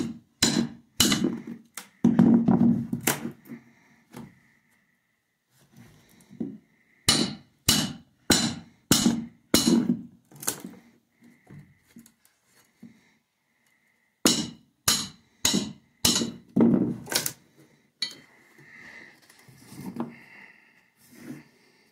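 Estwing hammer tapping a flat nail bar in rounds of sharp strikes at about two a second, driving the bar under the nail of a carpet tack strip on a plywood subfloor. Between rounds the bar is levered to pry the strip up, with a longer, rougher noise about two seconds in.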